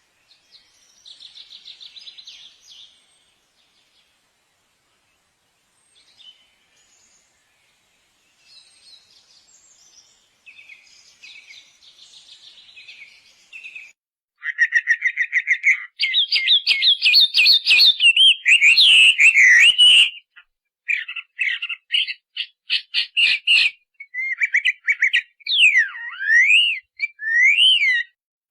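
Songs and calls of several different birds, one after another, separated by abrupt silent gaps. They run from a soft buzzy trill and faint chirps to a loud run of rapid trills, then quick repeated notes, and near the end clear whistles that slide down and back up.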